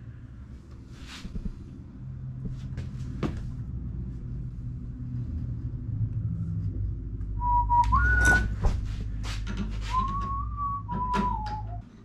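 A person whistling a short tune of a few notes in the second half, one note at a time with a slide down at the end, over a low steady hum and light clicks of brass plumbing fittings being handled.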